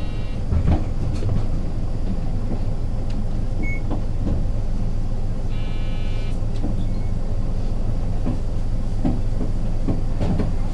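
Hino Blue Ribbon City non-step bus with its P11C diesel idling at a stop, heard from inside the cabin. A short electronic beep sounds at the very start and a longer one about five and a half seconds in, with scattered clicks and knocks of the doors working.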